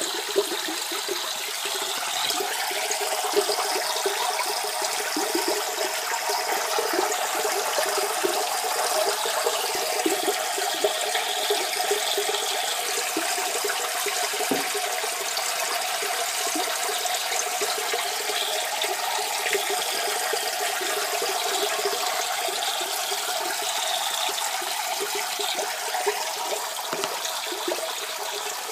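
Steady splashing and bubbling of aquarium water churned by the tank's filter.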